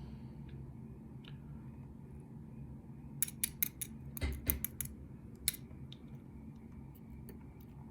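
Small, sharp metallic clicks and taps of lock pins and tools being handled while a pin-tumbler lock is gutted: a cluster of about a dozen ticks in the middle, with quiet handling either side.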